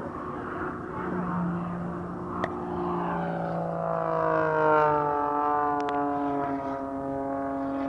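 Propeller engine of a Pitts Special aerobatic biplane droning during its display. About halfway in, its pitch slides down over a couple of seconds, then holds steady.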